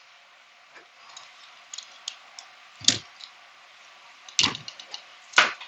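Small ticks and scrapes from a utility knife slitting the outer sheath of electrical cable and from handling the cable, with three sharper clicks about three, four and a half and five and a half seconds in.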